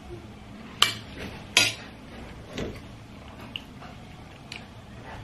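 Metal spoon and fork clinking against a ceramic dinner plate while eating: a handful of short, sharp clinks about a second apart, the louder ones in the first three seconds.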